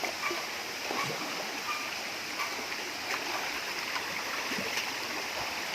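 Steady rush of a waterfall stream flowing over rocks, with a few faint clicks.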